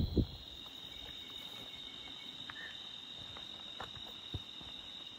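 A steady, high-pitched chorus of night insects, crickets or similar, with a brief knock right at the start and a few faint scattered clicks.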